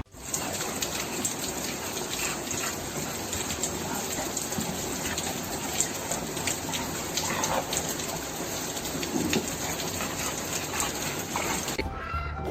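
Steady rush of running water, with faint scattered ticks, that cuts off suddenly near the end.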